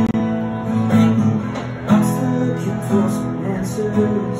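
Acoustic guitar strummed by hand, ringing chords with a new strum about once a second.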